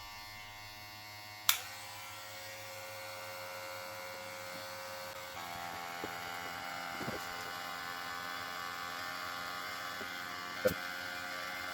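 Electric hair clippers running steadily, a motor hum with a blade buzz. There is a sharp click about a second and a half in and another near the end, and the tone shifts slightly about five seconds in.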